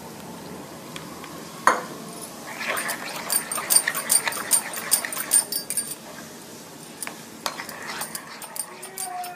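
Metal spoon stirring wet semolina batter in a glass bowl: rapid clinks and scrapes of the spoon against the glass over a wet squelch, with one sharp clink about two seconds in. A few short high whines near the end.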